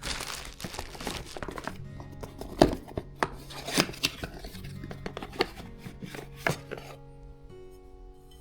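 Insulated coffee cups and their magnetic lids being handled: a fast, irregular run of clicks, taps and knocks for about seven seconds, a few of them louder, then it stops. Quiet background music runs underneath.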